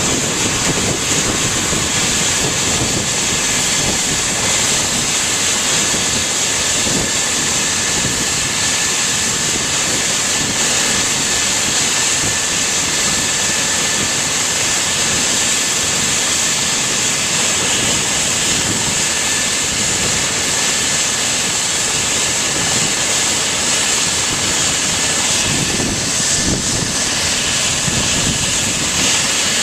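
Eurocopter EC135 helicopter running on the ground with its main rotor turning: a steady turbine whine, high-pitched and unbroken, over the engine and rotor noise.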